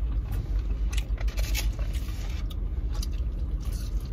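Steady low rumble of a car idling, with scattered short rustles and clicks of takeout food being handled and bitten.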